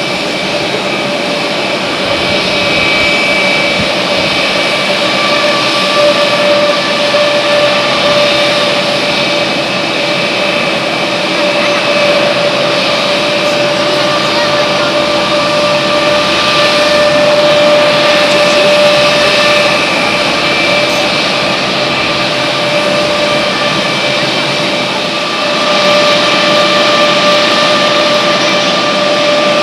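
Jet airliner engines running: a steady roar with several held whining tones throughout, a little louder near the end.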